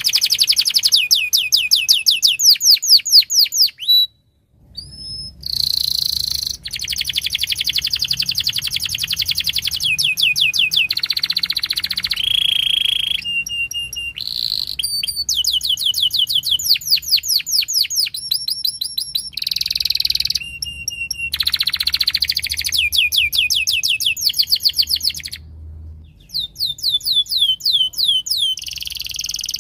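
Domestic canary singing a long, loud song of rapid trills: runs of quickly repeated falling notes alternating with short buzzy notes, breaking off briefly about four seconds in and again near the end.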